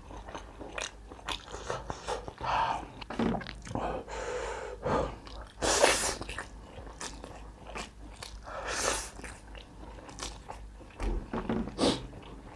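Close-miked eating of spicy instant noodles: wet chewing with several slurps of noodles, the loudest about six seconds in.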